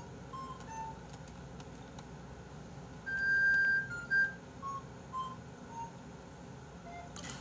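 Soft background music: a whistle-like melody of single notes stepping down in pitch, with one longer, louder held note about three seconds in.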